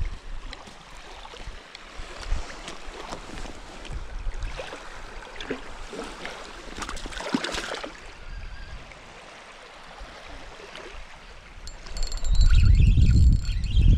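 Water lapping at the shoreline, with light scrapes and clicks of handling close by. About twelve seconds in, a strong wind starts buffeting the microphone with a loud low rumble.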